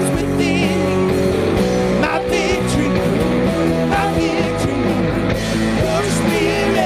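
A live rock band with electric and acoustic guitars, bass guitar and a drum kit plays a worship song.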